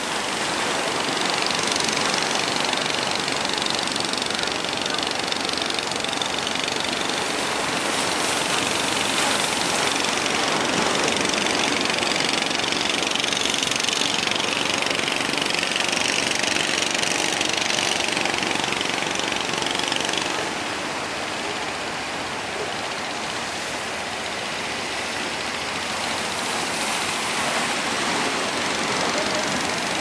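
Engines of several fishing boats running hard under load as they drive through breaking surf, mixed with the rush of the waves. The sound is loud and steady, easing slightly partway through.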